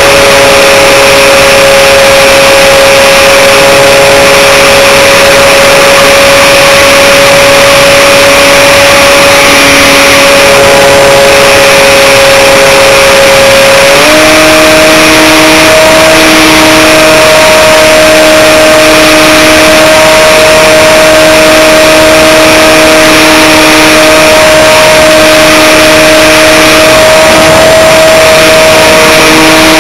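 Electric motor and propeller of an Aerobird Extreme RC plane, heard very loud from a camera riding on the plane: a steady whine over a rush of wind, stepping up a little in pitch about fourteen seconds in as the motor speeds up.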